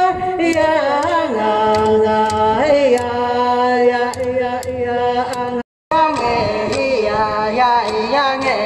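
Eskimo-style ensemble chant: voices holding long notes that slide between pitches, punctuated by sharp, fairly regular beats of a hand-held frame drum. The sound cuts out for a moment a little past halfway, then the singing carries on.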